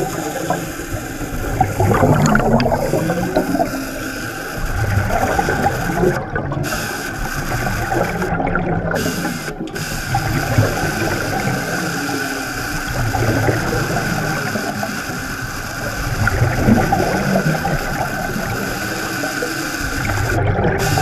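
Machinery running, heard underwater: a steady whine over a low churning rumble. Bubbling surges about every three seconds sound like a diver's regulator exhaling.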